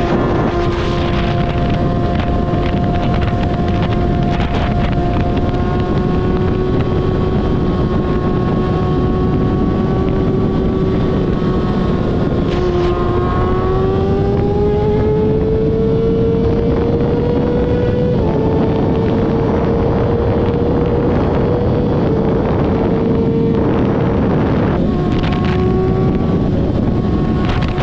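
A vehicle engine droning steadily with heavy wind noise on the microphone; its pitch climbs about halfway through, as under acceleration, then holds with a few small steps.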